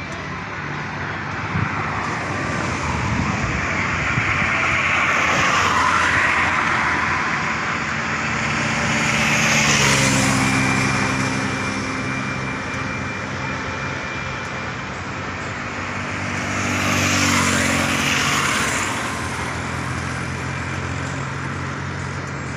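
Vehicles passing one after another on a concrete highway, their road noise swelling and fading three times, loudest around ten seconds in. From about ten seconds in, a steady low diesel engine note from an approaching tractor runs underneath.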